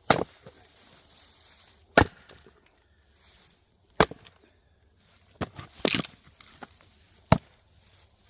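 A 3.5-pound axe chopping into Douglas fir firewood: four sharp strikes roughly two seconds apart, with a group of smaller knocks between the third and fourth.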